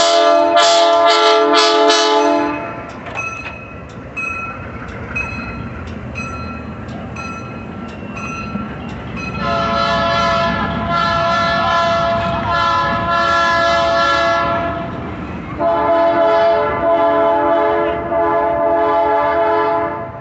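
Diesel train's multi-tone horn sounding a long blast that ends about two seconds in, then the passing cars rolling by with a low rumble and faint regular clicks of wheels over the rail joints. The horn sounds again in two long blasts, from about ten seconds in and from about sixteen seconds in.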